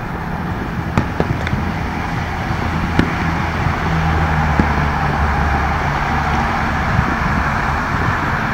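Steady freeway traffic noise with a low rumble of passing vehicles, broken by about half a dozen sharp fireworks pops scattered a second or more apart.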